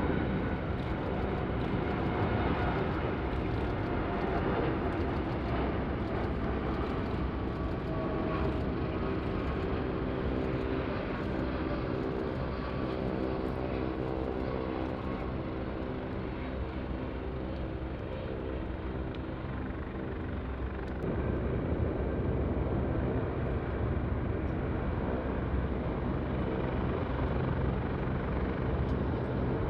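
Airliner jet engines running: a steady drone with several held tones, and a rushing roar that grows louder about twenty seconds in.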